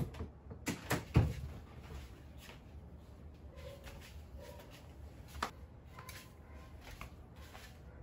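A few sharp knocks and clatters of household things being handled and set down on a plastic drawer cabinet, loudest about a second in, with one more knock a little after five seconds.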